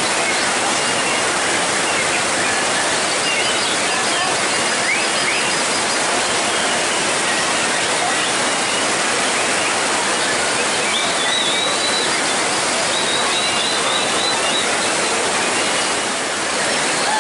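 Heavy rain falling steadily, with faint high whistled phrases of a white-rumped shama (murai batu) over it, a few seconds in and again from about eleven to fourteen seconds.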